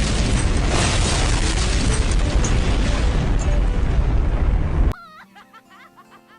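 A loud explosion sound effect, a long dense blast with a heavy rumble, that cuts off abruptly about five seconds in, leaving quiet music.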